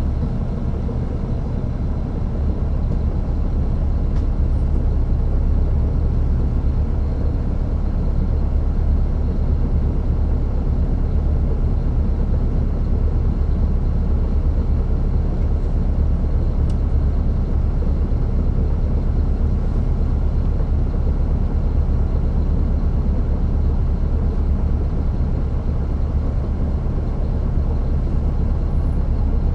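The Caterpillar C13 ACERT straight-six diesel of a 2009 NABI 416.15 transit bus running steadily under way, heard from the rear seat inside the cabin as a deep, steady rumble that grows a little louder about four seconds in.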